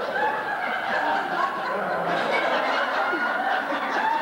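An audience laughing and chuckling, many voices at once in a steady wash.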